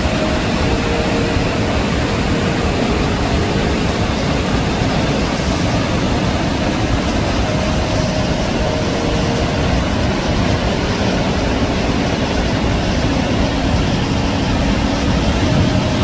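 Krimml Waterfalls rushing up close: a loud, steady roar of white water tumbling over rocks.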